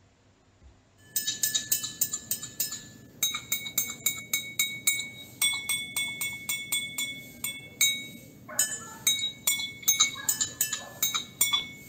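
A metal spoon tapping drinking glasses that hold different amounts of water: quick clinks at about four a second, each glass ringing at its own pitch. The pitch is set by how much water is in the glass.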